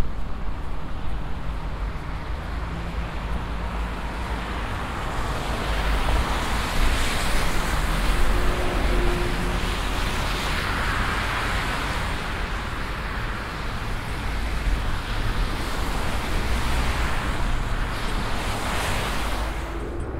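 City street traffic: passing cars whose tyre noise swells and fades several times, over a steady low wind rumble on the microphone from riding a bicycle.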